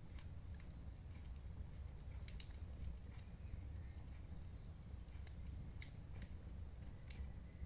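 Wood fire crackling in a fireplace: scattered sharp pops and snaps over a steady low rumble.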